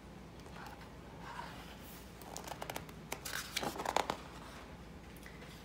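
A paper page of a picture book being turned by hand: a short run of rustling and crinkling, starting about two seconds in and loudest just before the four-second mark.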